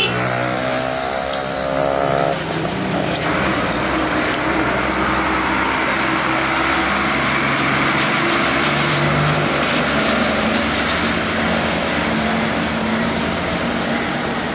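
Street traffic: vehicle engines running, one close by with a clear engine note for the first two seconds, then a steady mix of engine and road noise.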